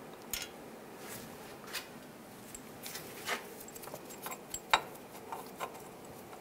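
Scattered light metallic clicks and taps of a hub mounting bolt being fitted and threaded in by hand against the steering knuckle, the sharpest tap about three-quarters of the way through.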